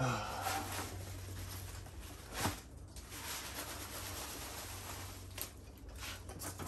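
Faint rustling and handling noise as a cardboard box of polystyrene packing peanuts is moved, with a short knock about two and a half seconds in, over a low steady hum.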